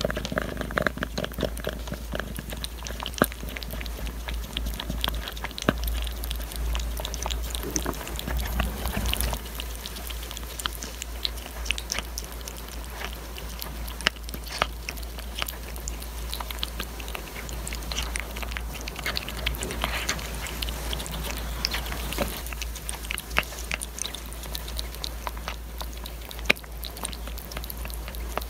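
A cat eating chunks of canned beef from a metal plate, close up: a steady, irregular run of small clicks and smacks from chewing and licking.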